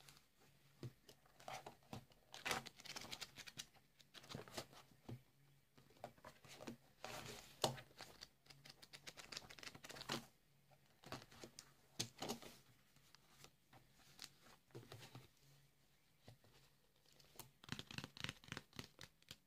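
Paper notebook pages being flipped and riffled, and a black-covered ring-binder planner being handled and tapped, giving bursts of rustling paper and light clicks and scratches that come and go.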